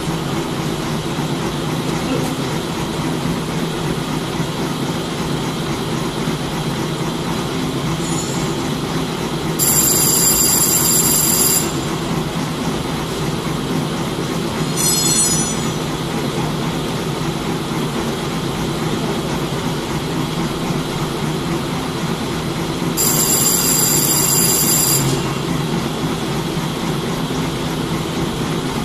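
Single-straw packaging and printing machine running with a steady mechanical hum. Three high-pitched squeals cut in over it, two of them lasting about two seconds and a shorter one between them.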